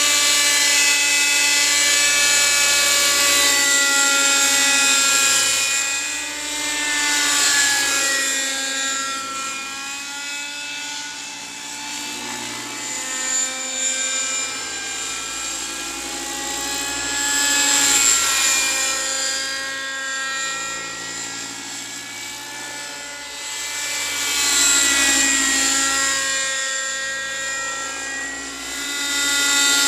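Raptor 30 V2 model helicopter's OS 32SX-H two-stroke glow engine, fitted with a Zimmermann silencer, running at flight power with its rotors. Its whine swells and fades several times, and its pitch slides as the helicopter flies near and then away. It is loudest at the start.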